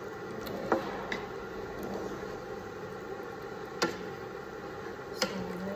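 Wooden spatula stirring chicken curry in a nonstick wok, knocking sharply against the pan three times over a steady low hiss.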